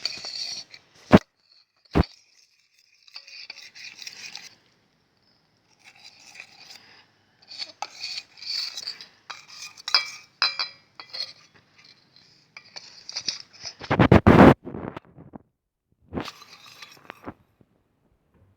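A spoon stirring and scraping sticky glue-and-water slime in a container, clinking against its sides in irregular bursts, with two sharp clicks early and a louder thump about fourteen seconds in.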